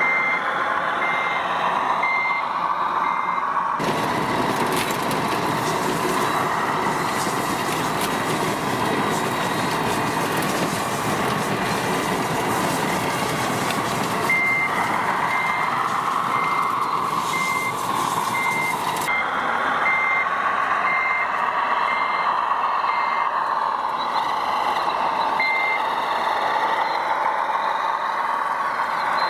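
RC construction vehicle's reversing beeper sounding a steady series of high beeps, a little over one a second, over the machine's engine sound, which rises and falls in pitch. The beeping stops for a stretch from about four seconds in, while a loud rushing noise covers the sound for about fifteen seconds, and it resumes in the second half.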